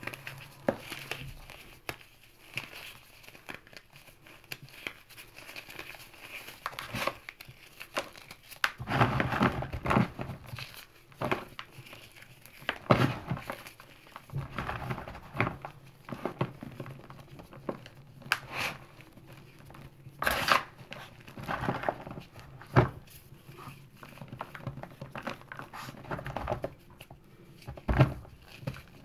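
Hands squeezing and crumbling crispy chunks of damp gym chalk and cornstarch: an irregular run of small crackling crunches and powdery crumbling. Now and then a chunk gives way with a louder crunch.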